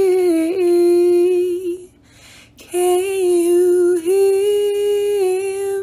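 A woman humming a slow, wordless melody in long held notes, with a short break about two seconds in.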